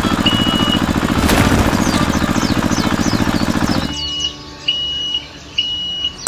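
Small tractor engine running with a fast, even putter, with a single knock about a second in; the engine cuts off about four seconds in. Short, high chirps and whistle-like peeps repeat over it and carry on after it stops.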